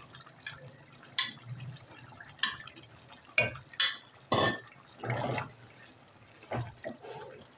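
Metal spoon scooping yogurt out of a tub and dropping it into a steel pot of chicken curry: a string of short, spaced-out scrapes, taps and wet plops.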